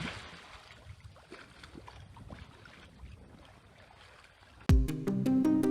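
Faint hiss of a hailstorm with scattered light ticks of hailstones landing. Near the end, background music with a heavy beat cuts in abruptly and is the loudest sound.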